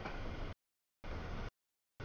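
Noise of a double-stack intermodal freight train rolling past, heavy in the low end, chopped by audio dropouts. It is heard for about half a second, cuts to dead silence for about half a second, returns for half a second, drops out again, and comes back near the end.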